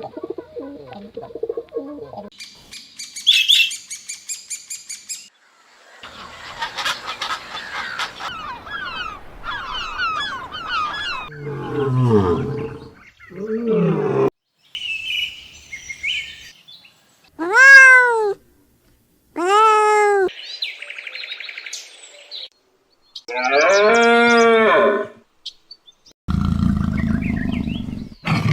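A rapid sequence of different animal calls cut one after another: high chirping and a chorus of birds, then low growls, then several drawn-out calls that rise and fall in pitch, each about a second long.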